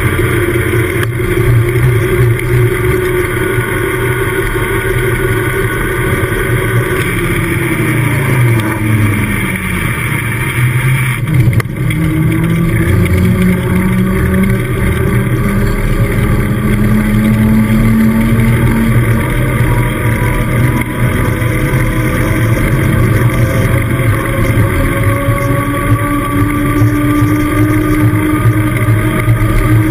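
Knobby mountain-bike tyres humming on tarmac at downhill speed, with wind rumbling on the camera microphone. The hum falls in pitch as the bike slows about a third of the way in, breaks briefly, then climbs again as the bike picks up speed.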